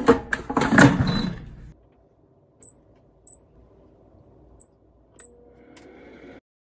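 Power AirFryer XL air fryer: its basket of wood pieces is pushed shut with a clatter, then four short high beeps as its touch buttons are pressed to set the timer. Its fan starts with a faint hum near the end.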